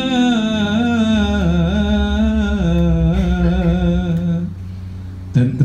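A man's voice chanting a Malay syair through a microphone, drawing out the last word of a line in one long, wavering melismatic note over a soft electronic keyboard accompaniment. The note fades about four and a half seconds in, and the voice starts the next line near the end.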